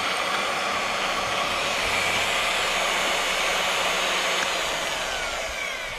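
Magnetic-base drill's motor running steadily at speed, then switched off a little after four seconds in, its whine falling in pitch as it spins down.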